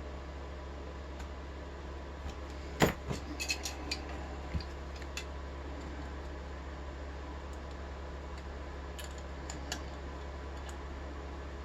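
Small metal clicks and clinks of hand tools on a rim cylinder lock as a snugly fitted part is worked at to get it off. A sharp click about three seconds in is the loudest, followed by a quick run of lighter clicks and two more near the end, over a steady low hum.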